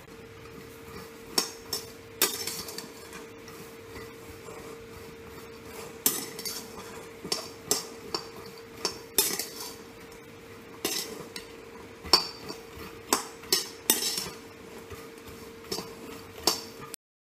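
Steel spatula scraping and clinking against a black wok as dry peanuts are stirred and tossed in it, in irregular strokes that come quicker and louder in the second half. A faint steady hum runs underneath, and the sound cuts off abruptly near the end.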